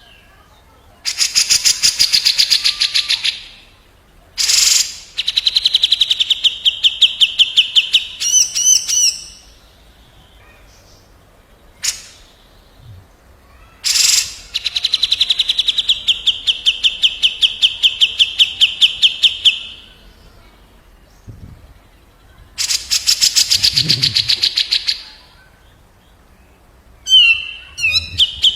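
Grey-cheeked bulbul and another bulbul trading harsh rattling calls: several bursts of rapid repeated notes, each a few seconds long, with short pauses between. Near the middle there is a brief warbled phrase and a single sharp note.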